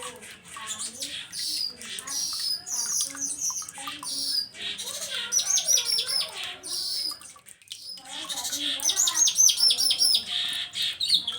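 Streaked weaver (manyar jambul) singing a rapid chatter of chirps and squeaky notes, with fast ticking trills about five and nine seconds in and a brief pause between them.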